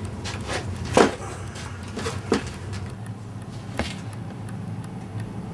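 A handful of short knocks and clunks, the loudest about a second in and the last near four seconds, over a steady low hum.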